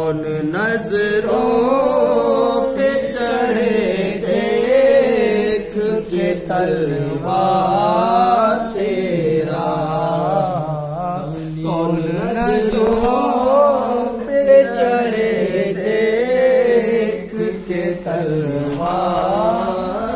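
Unaccompanied male voices singing an Urdu naat in long, drawn-out melodic phrases, the notes held and bent without clear words.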